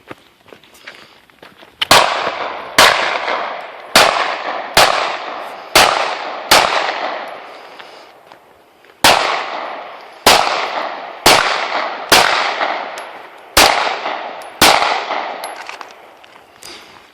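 Twelve single gunshots at a steady pace of about one a second, in two strings of six with a pause of about two and a half seconds between them. Each shot is followed by a long echo that dies away.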